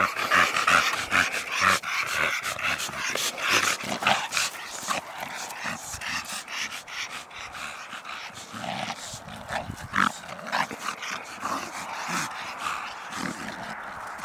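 Two dogs play-fighting at close range, making dog vocal noises over a dense run of short scuffs and knocks.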